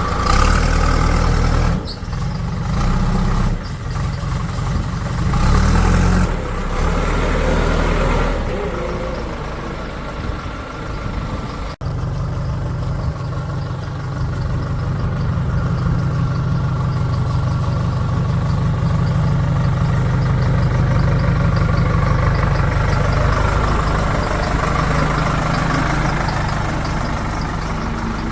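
Diesel engines of a backhoe loader and tractor running, revving up and down several times in the first few seconds. After an abrupt change about twelve seconds in, they run steadily.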